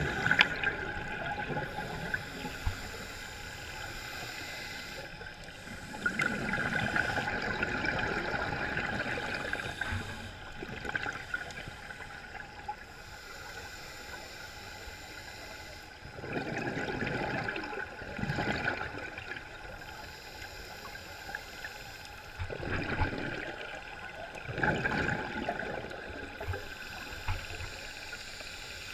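Scuba diver breathing underwater through a regulator: a steady hiss broken a few times by one- to two-second gushes of exhaled bubbles.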